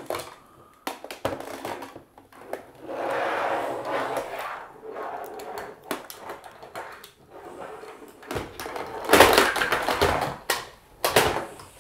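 Plastic clicking and knocking of a Nerf Zombie Strike Ripchain blaster and its linked dart chain being handled on a wooden table, with a louder clatter of the chain about nine seconds in.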